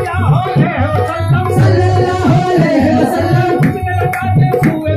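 Qawwali: male voices singing a devotional kalaam over a sustained harmonium and a steady tabla rhythm.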